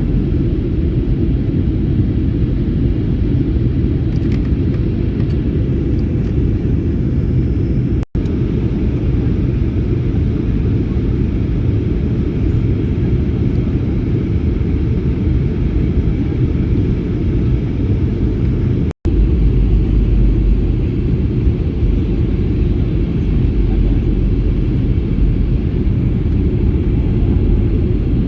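Steady low rumble of a jet airliner's cabin in flight, heard from a window seat. It cuts out for an instant twice.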